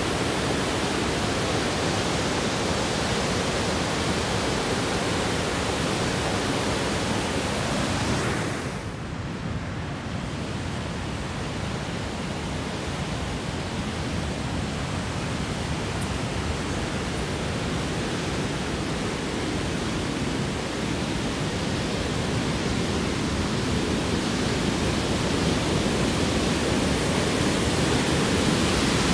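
Whitewater river rapids rushing, a steady even wash of water noise. It dips briefly about nine seconds in, then grows gradually louder toward the end.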